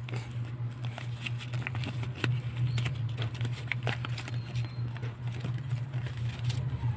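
Cardboard SIM-card pack being handled and opened by hand: scattered crackles and rustles of card and paper, over a steady low hum.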